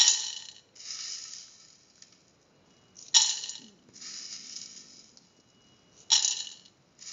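Soaked mung beans dropped into a stainless steel pressure cooker pot in three batches about three seconds apart. Each batch lands as a sharp clatter of beans on the steel bottom, followed by a softer, longer patter as they scatter.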